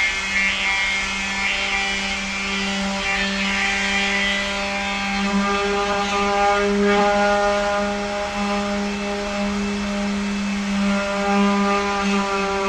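Electric sander running steadily against a refrigerator's body: a constant motor hum under a gritty sanding rasp.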